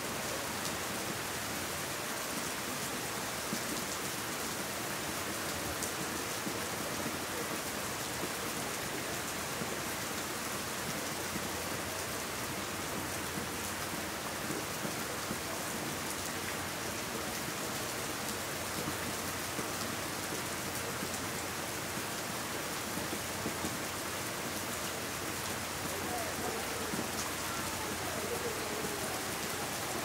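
Steady rain falling on leaves and wet ground, an even hiss of many drops.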